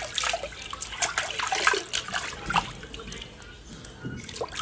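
Bathwater splashing and dribbling in uneven bursts as a hand scoops and pours water over a baby monkey standing in a shallow tub.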